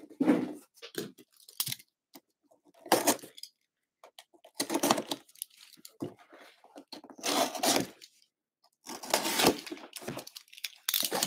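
Utility knife slitting the packing tape on a cardboard shipping box: about six short rasping cuts a second or two apart, with the cardboard rustling as it is handled.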